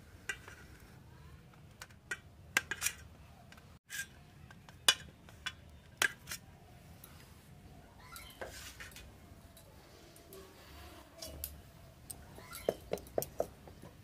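Kitchen knife cutting paneer on a steel plate, the blade knocking the metal in scattered sharp clicks and clinks, with a quick run of clinks near the end.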